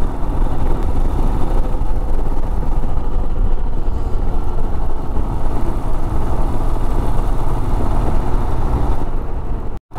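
Royal Enfield Himalayan's single-cylinder engine running at a steady cruise, mixed with wind and road noise rushing over the camera microphone. The sound cuts out for a moment just before the end.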